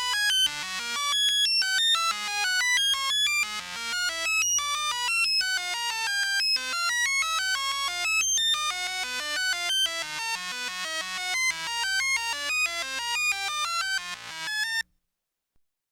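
Rapid electronic beeps, short high-pitched synthesized tones jumping randomly in pitch several times a second, like sci-fi computer or data-transmission chatter. They stop abruptly about a second before the end.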